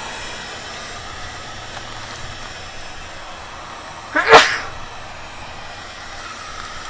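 Steady blowing hiss of a handheld heat gun, broken about four seconds in by a single short, loud burst.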